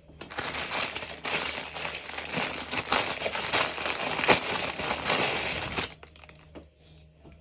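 Packaging crinkling and rustling as it is handled and opened, a dense crackling that runs for about six seconds and stops abruptly.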